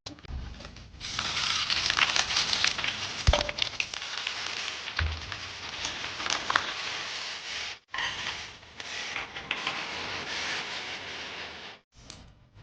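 Crackling and hissing of food frying in a hot wok, with a few knocks, in edited clips that break off sharply about eight and twelve seconds in.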